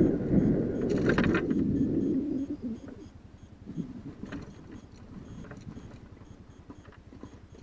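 A vehicle on the move, its low engine rumble mixed with wind on the microphone. About two and a half seconds in it cuts to a much quieter, even low pulsing with a few faint clicks.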